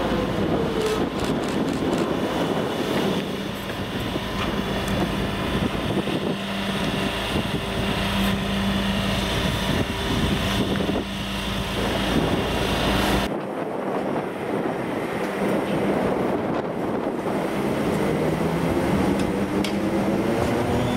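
ÖBB class 4020 electric multiple unit: its traction motors whine down in pitch as it slows, then a steady electrical hum runs while it stands at the platform. Near the end, after a cut, a rising whine comes as it accelerates away past the platform.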